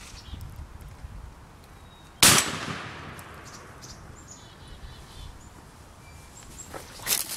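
A single shotgun blast about two seconds in, fired at a turkey, its echo dying away over about a second. Faint bird chirps follow, with a few rustling clicks near the end.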